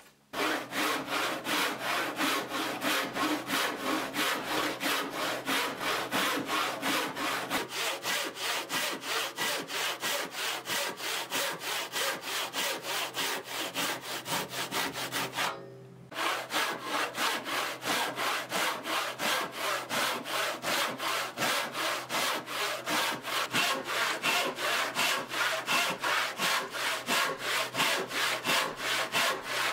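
Western handsaw cutting by hand into a softwood timber, steady back-and-forth strokes about three a second, with a short pause about halfway through before the sawing picks up again.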